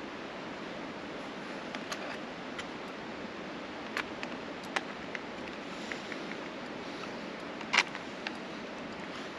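Steel ice-tool picks and crampon points clicking and scraping on rock as a climber moves up a mixed route: a few sharp clicks spread out over a steady hiss, the loudest about eight seconds in.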